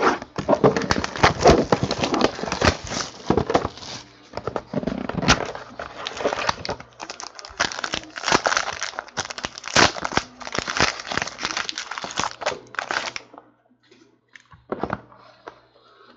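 Foil wrapper of a Panini Playbook football card pack being torn open and crinkled by hand, a dense crackling that stops about thirteen seconds in. A few soft clicks follow.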